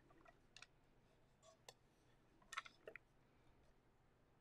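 Near silence with a handful of faint, scattered clicks and taps as a small wooden Schmincke watercolour box is handled and its lid opened.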